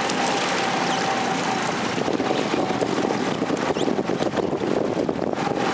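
Motorboat engine running steadily, mixed with the rush of water and wind buffeting the microphone.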